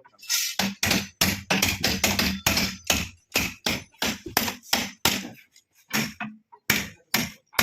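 A hammer striking column shuttering in quick repeated blows, about three a second, with the blows spacing out near the end.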